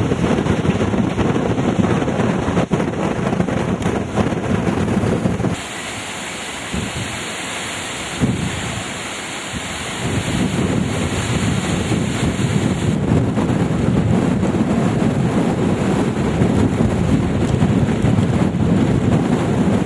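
Hurricane wind gusting and buffeting the microphone, with driving rain. About five seconds in, the low rumble drops away for roughly four seconds, leaving a steadier hiss of rain, then the wind rumble comes back.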